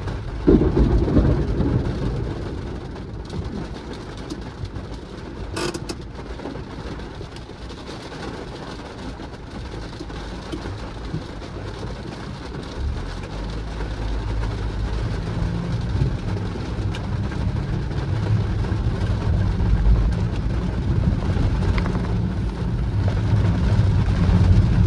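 Car driving in the rain: a steady low rumble of road and engine with a faint hiss of rain, growing louder in the second half. There is a loud thump about half a second in and a sharp click a few seconds later.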